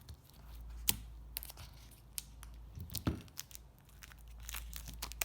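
Plastic packaging on a product box crinkling and tearing as it is pulled open, in short irregular snaps and crackles.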